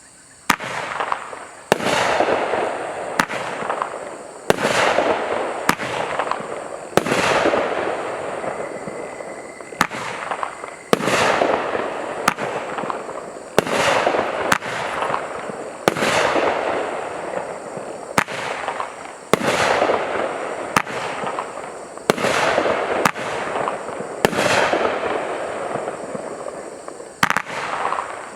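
A 500 g, 12-shot consumer firework cake firing its shots in sequence: sharp bangs about every one to one and a half seconds, each followed by a fading hissing tail.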